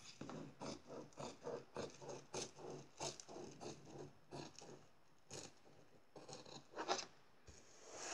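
Orange-handled sewing scissors snipping through fabric and a pinned paper pattern. The cuts come in a steady run of about three a second, then a short pause and a few more snips, the last of them sharper.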